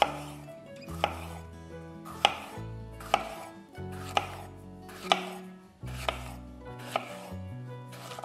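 Kitchen knife slicing a bell pepper into strips on a wooden cutting board: the blade knocks sharply on the board about once a second, eight times.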